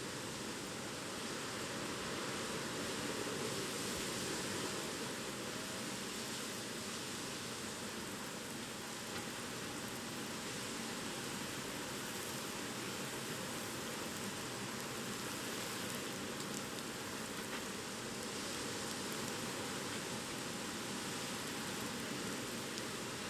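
Typhoon wind and rain: a steady rushing noise that swells slightly a few seconds in.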